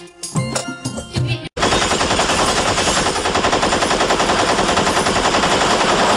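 A song cuts off abruptly about a second and a half in, and a recorded machine-gun sound effect takes over: rapid, steady automatic fire.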